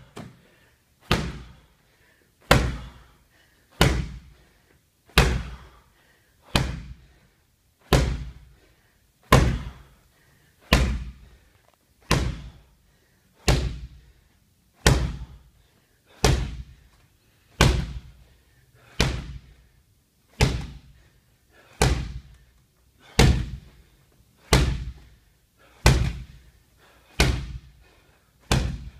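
Medicine ball slammed down hard onto a rubber gym floor over and over, a heavy thud about every second and a half, about twenty in all.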